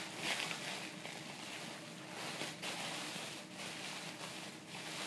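Packing material rustling as it is handled and pulled away from a boxed skull replica, in several irregular swishes.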